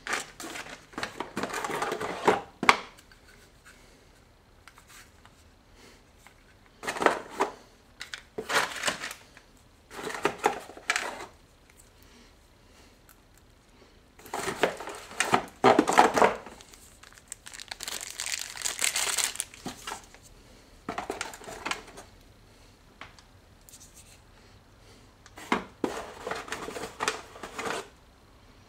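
Packaging crinkling and rustling in repeated bursts a few seconds apart, as camcorder accessories and cables are handled out of a cardboard box, tissue paper and plastic wrapping.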